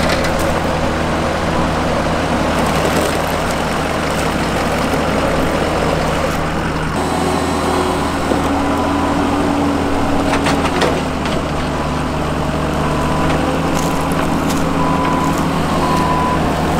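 Engines running steadily as a pickup truck pulls a Tennant ride-on street sweeper that has no traction on gravel. Near the end, short even beeps come in about once or twice a second.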